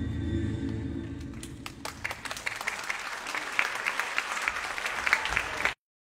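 Low music dies away over the first two seconds as an audience breaks into applause. The clapping builds and then cuts off abruptly shortly before the end.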